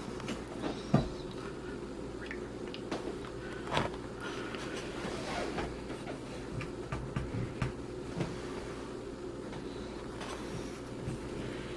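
Scattered clicks and light scrapes of hand tools as the kitchen sink drain basket is held with needle-nose pliers and its nut is tightened underneath, over a steady low hum.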